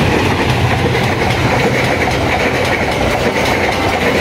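A passenger train hauled by a CC 206 diesel-electric locomotive passes close by. The coaches roll past with a steady rush and rumble of wheels on the rails.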